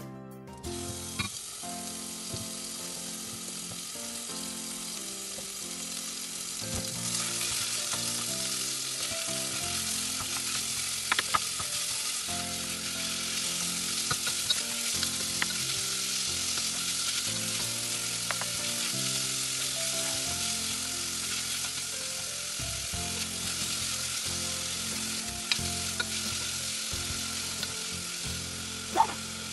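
Minced meat with tomato sizzling as it fries in a small nonstick saucepan, stirred with a wooden spoon; the sizzle grows louder about a quarter of the way in, and the spoon knocks against the pan now and then.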